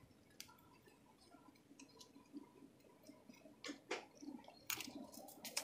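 Near silence, broken by scattered faint clicks that come more often and a little sharper in the last two seconds.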